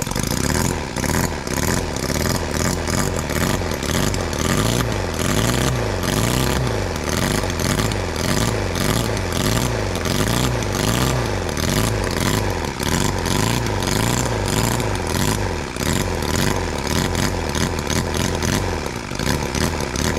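Holt H75 four-cylinder model engine running on alcohol through a vaporizer carburetor, revved up and down again and again as the throttle is blipped by hand. It picks up and drops back quickly, showing a sharp throttle response, and settles near the end.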